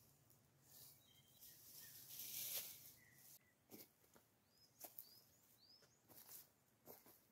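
Faint footsteps on dry leaf litter and the rustle of a clump of moss being handled and pressed onto a log wall, in short separate scuffs. A bird chirps about three times near the middle.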